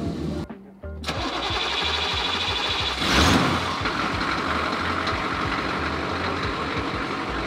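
Truck engine starting: a low rumble, then a loud burst as it catches and revs about three seconds in, settling into a steady idle.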